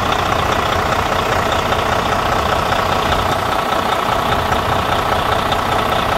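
A Detroit DD13 inline-six diesel engine in a 2014 Freightliner Cascadia idling steadily, heard up close in the open engine bay.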